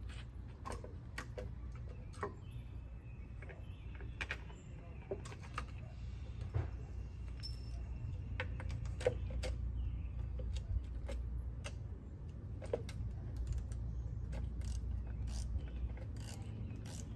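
Screws being turned in by hand through a hose reel's wall bracket: irregular small clicks and scrapes of metal, with no steady rhythm. A steady low rumble of background noise runs underneath.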